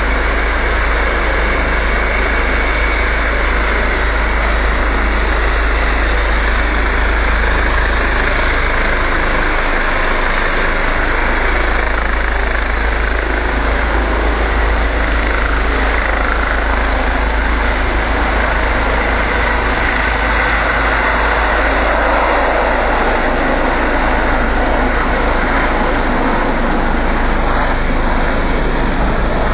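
Ambulance helicopter's turbine and rotor running at takeoff power as it lifts off, a loud, steady noise that does not let up.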